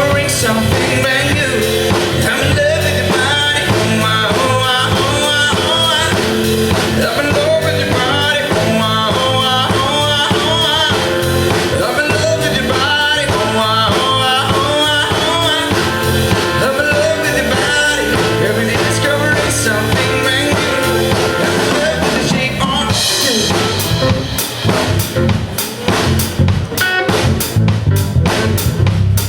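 Live pop band playing an instrumental passage: drum kit, bass and a melodic lead line over a steady beat. Near the end the melody drops away and sharp drum hits take over.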